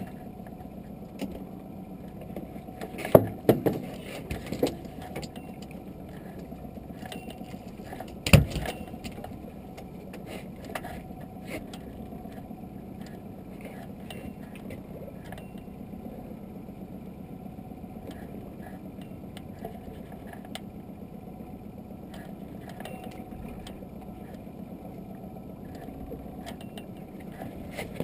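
Sharp knocks and clatter on a small open fishing boat, a cluster about three seconds in and one louder knock at about eight seconds, over a steady low hum.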